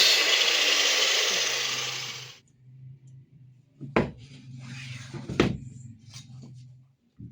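A woodworking power tool running loudly and then cutting off about two seconds in. A low hum follows, with two sharp knocks and a few lighter taps of wood being handled.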